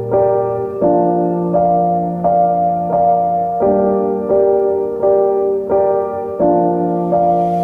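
Background piano music: soft chords struck about every two-thirds of a second.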